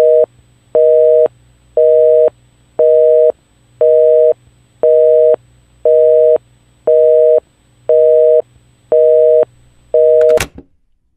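North American telephone busy signal: a loud two-tone beep repeating about once a second, eleven times, then a click as it cuts off.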